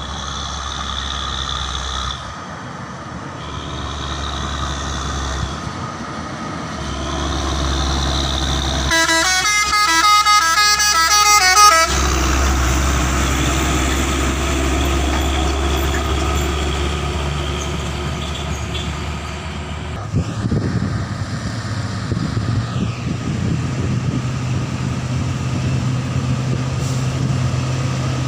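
Heavy trucks' engines running on a hill road, with a truck horn sounding several shifting notes for about three seconds a third of the way in, the loudest sound, before an LPG tanker truck passes close by. Later a steadier, deeper engine drone takes over as other trucks come up.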